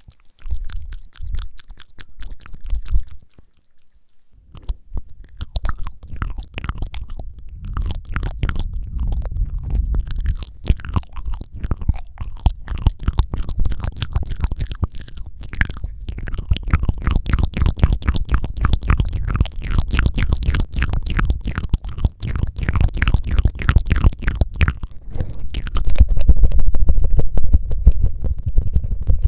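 Close-miked ASMR mouth sounds: rapid wet tongue flutters and clicks, many a second, with a short pause about three seconds in and growing louder near the end.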